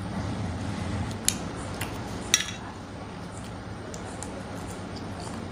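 Hand eating from a stainless steel plate: roti being torn and food picked up, with a sharp metallic clink on the steel plate a little past two seconds in and a smaller tick about a second before it, over a steady low hum.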